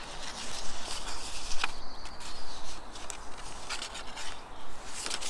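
Paper card rustling and scraping as it is handled and folded shut, with a few sharp clicks.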